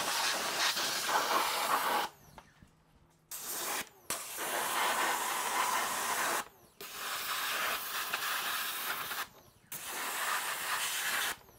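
Water hissing out of a hand-held hose spray nozzle in five bursts, rinsing cleaner off a car's engine bay. The spray stops briefly about two, four, six and a half and nine and a half seconds in as the trigger is let go, and the second burst is very short.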